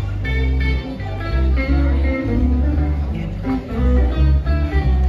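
Live band playing an instrumental passage with picked guitar notes over a steady bass line.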